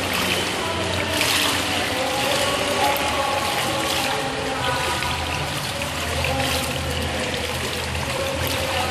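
Water sloshing and splashing around a kayak as the paddler capsizes and sweeps the paddle to roll back up.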